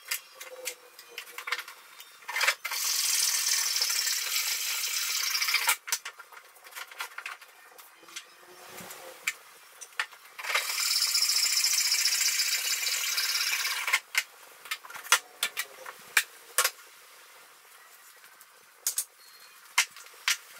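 Wood being sawn in two steady stretches of about three seconds each, each starting and stopping sharply. Between them come sharp knocks and clatter of wooden boards being handled and set down on the bench.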